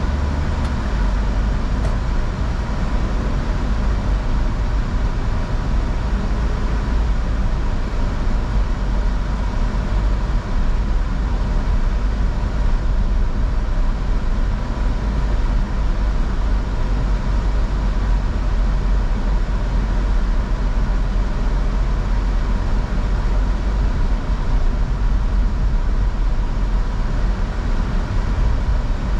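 A car driving: a steady, unbroken rumble of engine and road noise.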